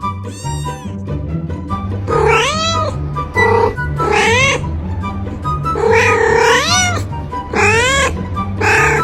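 Domestic cat meowing loudly, about six drawn-out calls in a row from about two seconds in, each rising and then falling in pitch, over background music.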